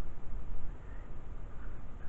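Wind buffeting the microphone during a thunderstorm, a low, fluttering rumble.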